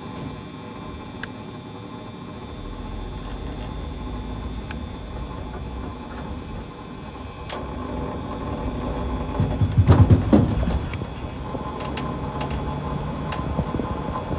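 Pickup truck driving: a steady low rumble of road and engine noise, with a brief louder surge and rattle about ten seconds in.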